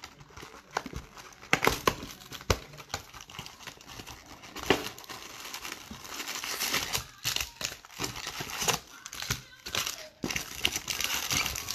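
Hands opening a Topps Baseball jumbo box of trading cards and pulling out its foil-wrapped packs: crinkling wrappers and cardboard handling with many short sharp clicks, the crinkling denser and louder in the second half.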